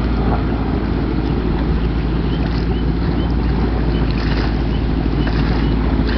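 Small jet boat's Subaru engine running steadily under way as the boat passes and circles, with water rushing from the jet drive and wind buffeting the microphone.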